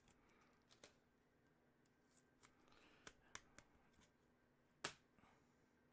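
Near silence, broken by faint clicks and light rustles of trading cards being handled, with one sharper click just under five seconds in.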